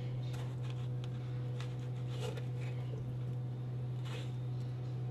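A kitchen knife slicing through a tomato on a wooden cutting board: a few faint soft cuts and taps over a steady low hum.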